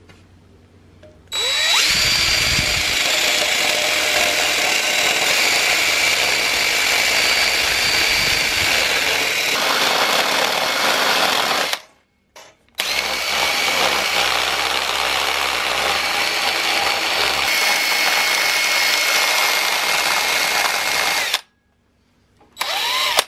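Cordless drill spinning a grinding bit in the bolt holes of a steel bracket, enlarging the holes so the bracket sits flush. It makes two long steady runs with a whine, about ten and eight seconds, with a brief stop between them and a short burst near the end.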